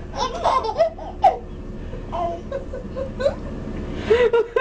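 Two babies babbling and giggling back and forth at each other in short, high-pitched squeals and laughs.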